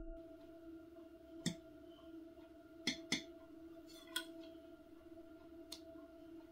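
A quiet, steady electrical hum with a few short, light clicks or taps scattered through it, about five in all.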